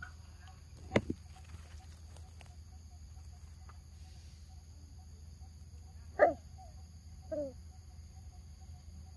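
Two short animal calls that fall in pitch, about six and seven seconds in, over a steady high insect chorus; a sharp short sound about a second in.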